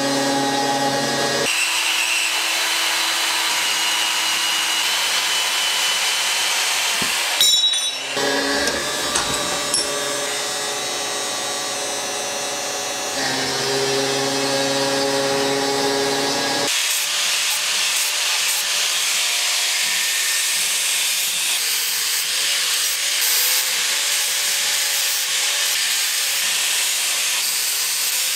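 Electric angle grinder running against steel, heard in a string of clips that change suddenly. A steady motor tone sits under a grinding hiss, and the high hiss takes over from about two-thirds of the way in. There is a brief knock a little after seven seconds in.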